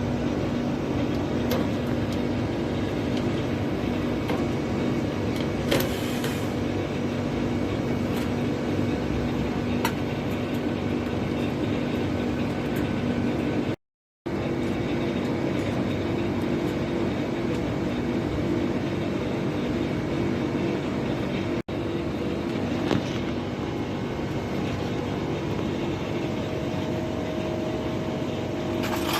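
Steady mechanical hum holding a couple of low tones, with a few light clicks; it drops out for a moment about fourteen seconds in.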